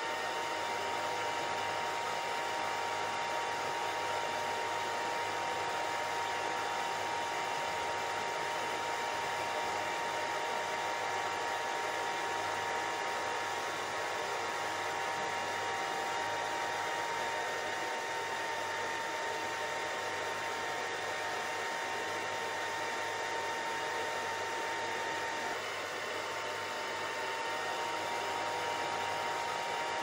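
Steady white noise for relaxation and sleep: an even, unbroken hiss with a faint steady whine in it, which dips briefly about three-quarters of the way through.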